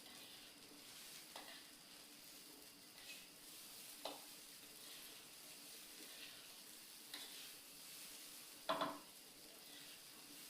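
Faint, steady hiss with a few brief clicks or short chips scattered through it; the loudest comes about nine seconds in.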